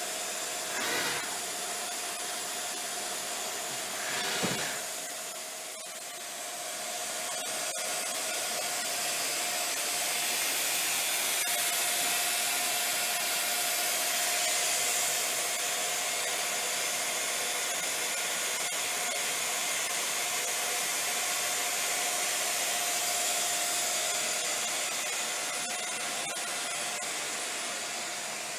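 Hardinge GX-1000 CNC vertical machining centre standing powered up but not cutting: a steady fan-like hiss with one constant mid-pitched hum. Two short whooshes come in the first five seconds.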